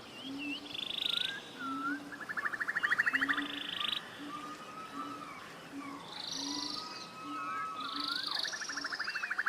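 Several forest birds singing together: fast buzzy trills of a second or so and short swooping whistles, over a low note repeated steadily a little under twice a second.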